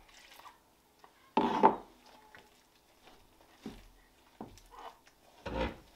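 Dumpling dough being mixed by hand in a stoneware bowl, with a few short louder sounds, the loudest about a second and a half in and another near the end.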